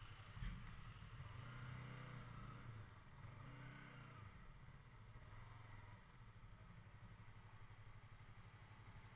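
Sport motorcycle's engine running faintly at low road speed, its note rising a little about a second in and easing off again around the middle. A brief knock about half a second in.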